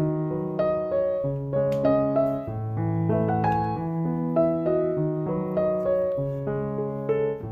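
Background instrumental music: a light melody of short notes over slowly changing bass notes.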